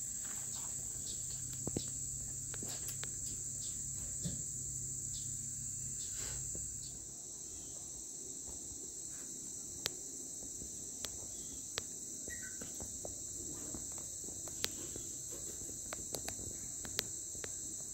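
Steady, high-pitched chorus of insects trilling, with scattered light ticks. A faint low hum underneath stops about seven seconds in.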